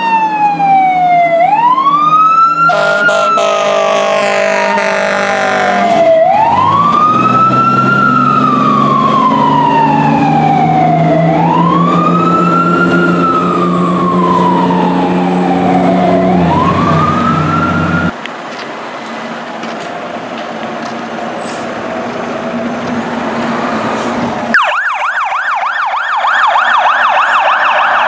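Fire engine siren wailing, rising and falling about once every five seconds, with a long air-horn blast a few seconds in and the truck's diesel engine running underneath. After a stretch of quieter traffic noise, a fast-warbling yelp siren starts near the end.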